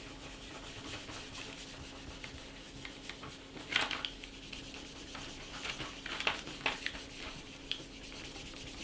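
A pad wet with isopropyl alcohol is rubbed by hand over a Commodore 16 keyboard circuit board, giving a soft, steady scrubbing. There are a few sharper scuffs about four seconds in and again around six seconds.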